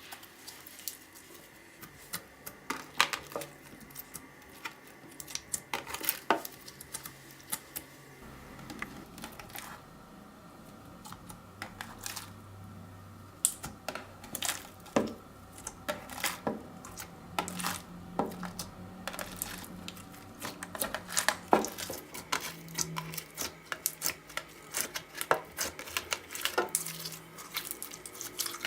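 Slime being mixed and worked by hand, popping and clicking in irregular sharp snaps as trapped air bubbles burst.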